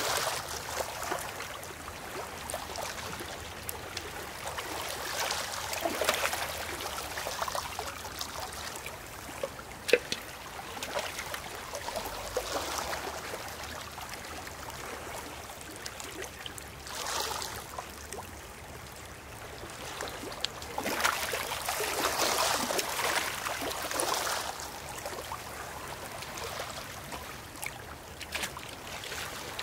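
Water poured in a thin trickle from a glass jug into a metal bucket already nearly full of water, splashing onto the water surface, over shallow water washing across shore stones. The hiss swells and fades several times, and a single sharp click comes about a third of the way through.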